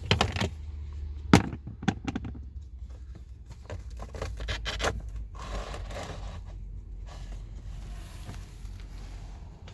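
Plastic cabin air filter access cover behind the glove box unclipping with a few sharp clicks, the loudest about a second and a half in. Then the filter slides out of its housing with scraping and rustling.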